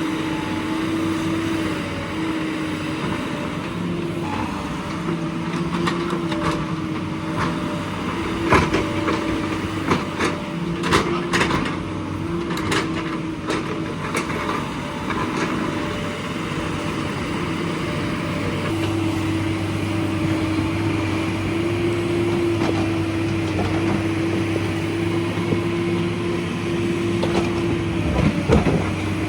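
JCB excavator's diesel engine running steadily as it digs into a hillside, with scattered sharp knocks and clanks from the digging, thickest about ten to fourteen seconds in.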